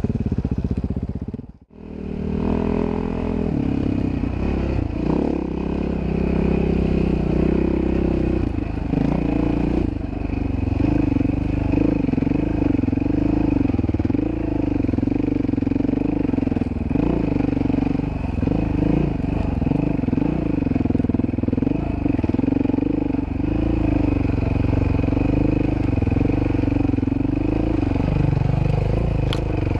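Dirt bike engine running under load, its pitch rising and falling with the throttle. The sound drops out briefly about a second and a half in.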